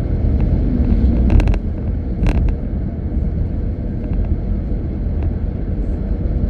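Car cruising at speed on an expressway, heard from inside the car: a steady low rumble of engine, tyre and road noise, with a few brief clicks about one and a half and two seconds in.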